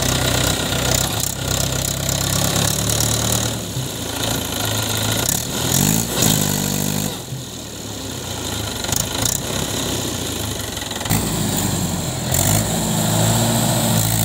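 Mahindra 575 DI tractor's diesel engine running hard while pulling a trailer loaded with soil through soft mud, its pitch rising and falling as it revs up about six seconds in and again about eleven seconds in.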